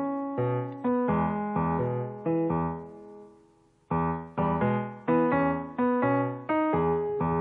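Background piano music: a run of struck chords, each ringing and fading, with a short pause a little over three seconds in before the playing resumes.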